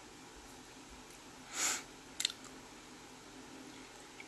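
A short breath through the nose about one and a half seconds in, then a couple of light clinks of a metal fork against the plate while eating; otherwise faint room tone.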